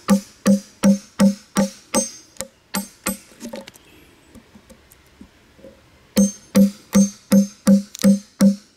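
Hammer blows driving a wood chisel into a log, a steady run of ringing knocks about three a second. The knocks stop for a couple of seconds in the middle, with only faint small sounds, then resume at the same pace.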